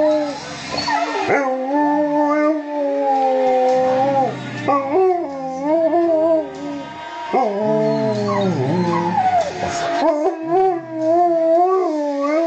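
Husky-type dog howling: several long howls in a row, each wavering and sliding in pitch.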